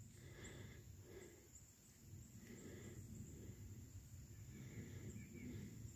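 Near silence: faint outdoor background with no distinct sound.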